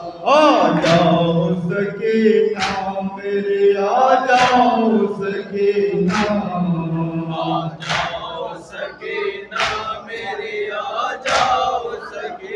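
Group of men chanting an Urdu noha (mourning lament) together, a lead voice on the microphone with the rest joining in. Sharp, evenly spaced slaps of matam, open hands struck on the chest, come about once every 1.7 seconds.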